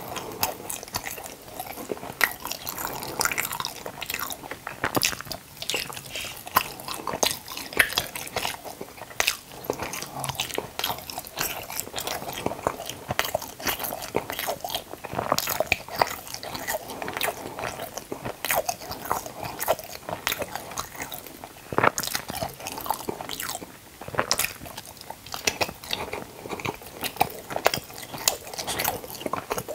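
Close-miked chewing and biting of a soft white food, with frequent sharp wet mouth clicks and smacks at an uneven pace.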